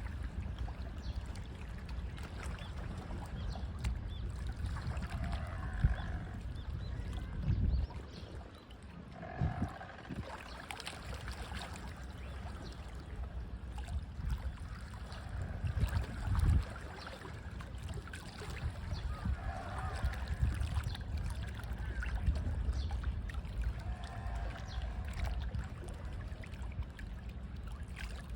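Small waves lapping and splashing against the shore in a steady low wash, with a few heavier slaps. Birds call briefly every few seconds over the water.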